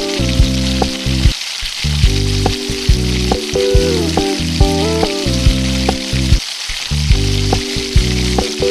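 Background music with a repeating melody and bass line, over a steady sizzle of food frying in a pan.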